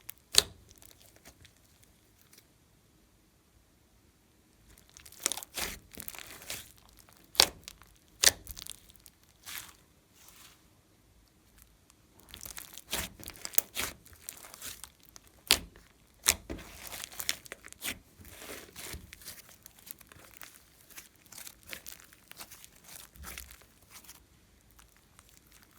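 Slime being squished and stretched by hand: sticky crackling with sharp pops of trapped air, broken by a quiet spell of a few seconds near the start.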